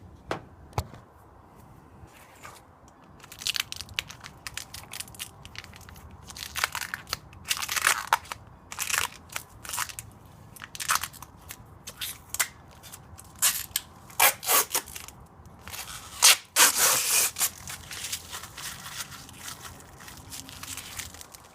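Plastic protective wrapping being peeled and crinkled off a new LED third brake light, in irregular rustling, crackling bursts.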